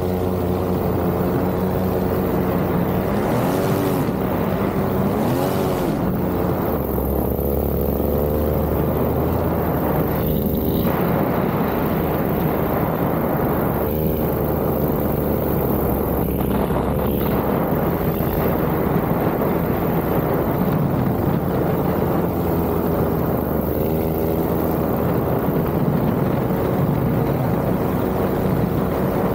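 Paramotor engine and propeller running steadily in flight, its pitch rising and falling briefly a few times as the throttle or airflow changes.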